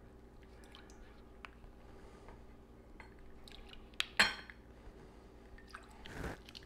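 Ice water being measured by the tablespoon from a glass into a bowl of beaten egg: quiet light clinks and dribbles, with a sharper clink and a short splash about four seconds in and a smaller one near the end.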